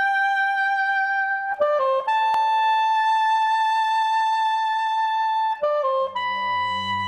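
Slow opening-title music: a melody of long held notes, each ringing steadily for several seconds, joined by a quick pair of shorter notes about a second and a half in and again near the end, where a lower accompaniment comes in underneath.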